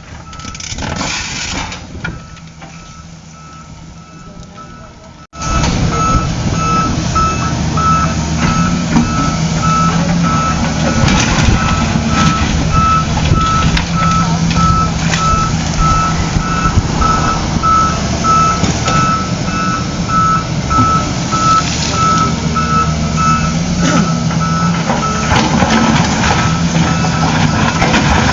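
Reversing alarm of a heavy construction vehicle beeping steadily over its running engine. Everything gets much louder about five seconds in.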